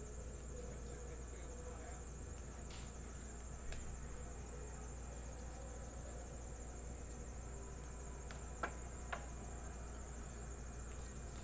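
Quiet room tone: a steady, faint high-pitched whine over a low hum, with a few soft taps, the clearest two about nine seconds in.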